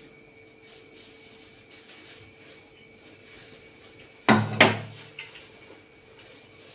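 Two sharp knocks about a third of a second apart, with a short low boom, then a light click, like a wooden cupboard door being shut, over a steady low hum.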